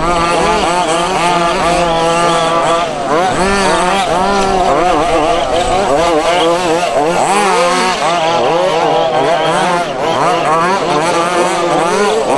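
Several 1:5 scale petrol RC buggies racing together, their small two-stroke engines overlapping and constantly revving up and easing off as they accelerate and brake around the track.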